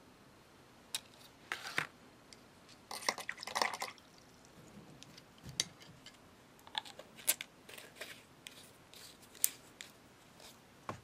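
Scattered light clicks and short rustles of hands handling the plastic nail-tip display wheel and nail polish bottles, with a busier cluster of small knocks about three seconds in.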